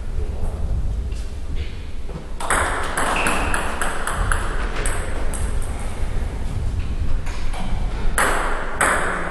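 Table tennis ball clicking back and forth off bats and table in a rally of quick strokes starting about two and a half seconds in, then a few single clicks near the end. Two brief louder scuffs, one as the rally starts and one near the end, over a steady low hum.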